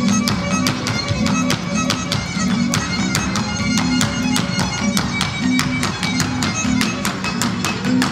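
Lively Latin American folk music led by violin, with rapid sharp taps throughout.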